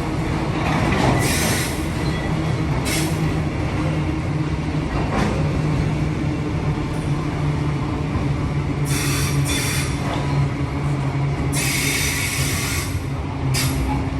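Queensland Rail electric passenger train moving through the station with a steady low drone. Several short, high-pitched screeches of wheel squeal come and go, the longest about two-thirds of the way through.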